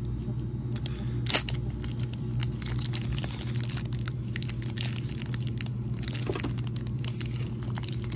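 Foil wrapper of a Panini Prizm Draft Picks trading-card pack crinkling and tearing as it is peeled open along its seam, with scattered sharp crackles, the loudest about a second and a half in. A steady low hum runs underneath.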